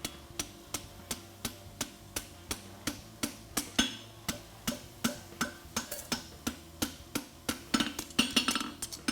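Farrier's hammer striking a steel horseshoe on an anvil at about three blows a second, with the anvil ringing between blows, while fullering the shoe. The blows come quicker and closer together near the end.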